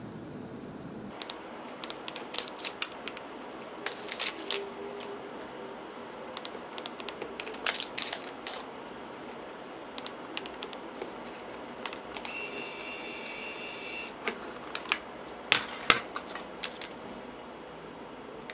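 A Brother P-touch handheld label maker is keyed with clicking taps, then its printer runs with a whirring whine for about two seconds as it feeds out label tape. Sharp scissor snips follow as the label tape is cut.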